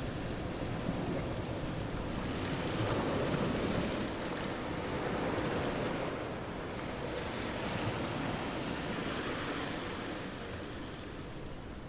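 Ocean waves washing in, the surf swelling and easing back every few seconds.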